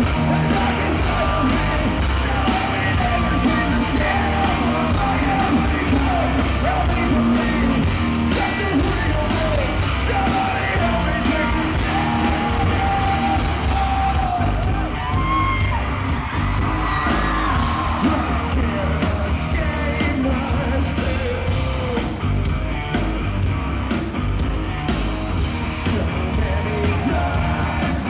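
Hard rock band playing live, with distorted guitars, heavy bass and drums under loud sung and shouted vocals.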